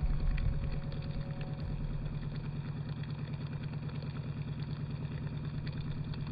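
Small electric water pump on an RC fire truck running steadily, pumping water and foam out through its water cannon, with a low hum that pulses fast and evenly.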